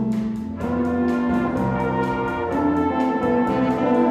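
School jazz band playing a bossa nova arrangement live. The brass section holds sustained chords over a steady light pulse of about four ticks a second from the rhythm section.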